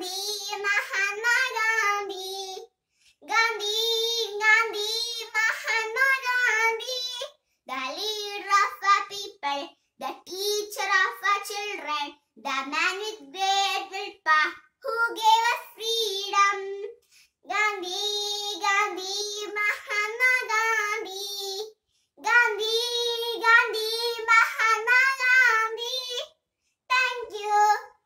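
A young girl singing solo and unaccompanied, in short phrases of held, wavering notes with brief silent pauses between them.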